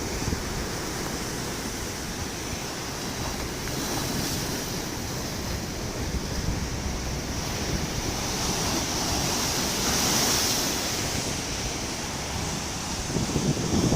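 Sea surf washing ashore: a steady rushing wash that swells gently and eases, loudest about two thirds of the way through, with some wind noise on the microphone.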